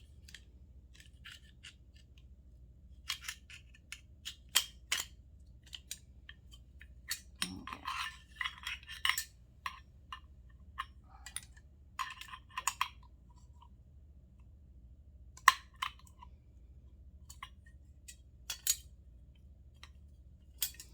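Hand tool working metal doorknob parts apart, prying brass off steel: irregular sharp clicks and clinks, with a few short scrapes of metal on metal.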